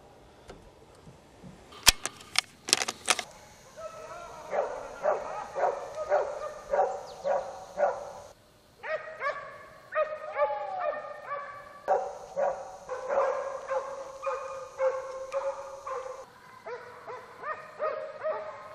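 Hunting dogs barking in quick runs of short, repeated barks, after a brief cluster of sharp knocks about two seconds in.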